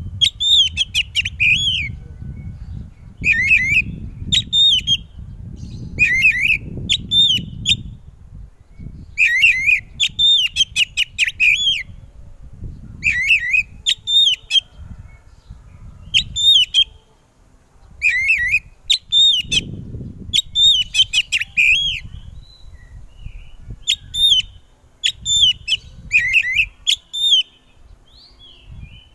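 Oriental magpie-robin (kacer) singing loudly: short phrases of sharp whistled notes sliding up and down, repeated every second or two with brief pauses. A low rumble sits underneath in places.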